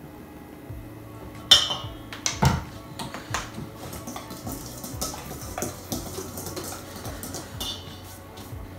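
Kitchen clatter of utensils and containers knocking and clinking around a metal mixing bowl. A sharp, ringing clink comes about a second and a half in, followed by scattered lighter knocks.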